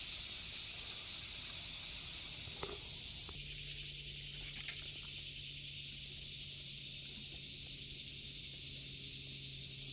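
Steady high-pitched outdoor hiss, with a low steady hum coming in about three seconds in and a single sharp click near the middle.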